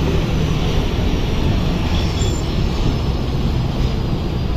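Steady rumble of a moving bus's engine and road noise, with a faint high whine slowly falling in pitch.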